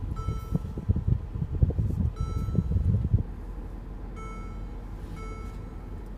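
Mercedes-Benz SL550's electronic cabin chime sounding short pitched beeps roughly once a second as park assist is engaged, over low road rumble inside the car that eases about three seconds in.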